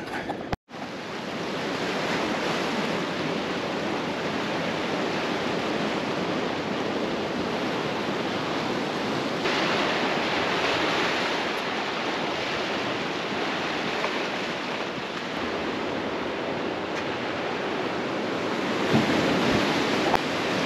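Atlantic surf washing over a rocky shoreline, a steady rush of waves with wind on the microphone. The sound cuts out for an instant about half a second in.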